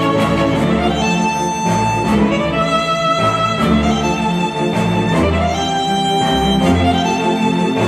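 Instrumental music played through ELAC Debut Reference DBR-62 bookshelf speakers driven by a Rotel A12 integrated amplifier. A violin and string section carry a sustained melody over a repeating bass line.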